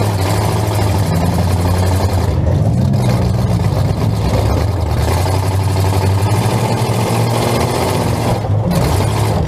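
Full-size demolition derby car's engine running loud, heard from inside the stripped-out cabin, its pitch rising and falling as the driver works the throttle, with a steady rattling noise over it.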